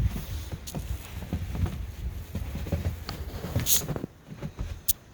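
Footsteps crunching and scuffing through deep, fresh powdery snow: irregular soft thumps with a few sharper clicks.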